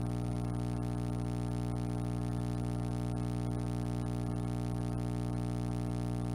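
A steady, low electronic drone held on one unchanging chord, thick with overtones, without any rise or fall in pitch or loudness.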